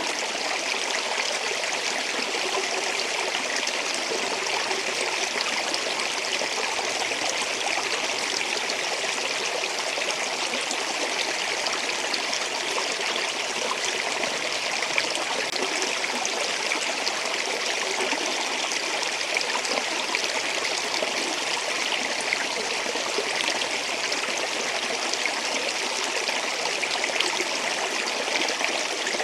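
Flowing water, a steady, even rush and babble of a stream or small waterfall with no change in level.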